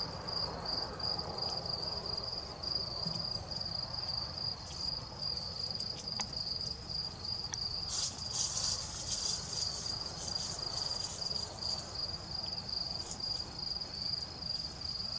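Night insect trilling: one steady high-pitched note held on a single pitch, with a rougher, higher buzz joining about halfway through.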